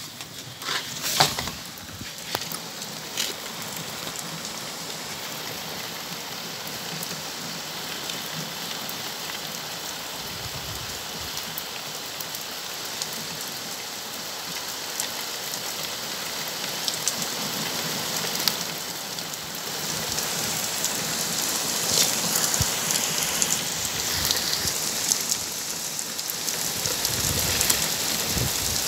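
Heavy rain falling on a paved patio and gravel bed: a steady hiss of drops that grows heavier toward the end, with a few sharp taps about a second in.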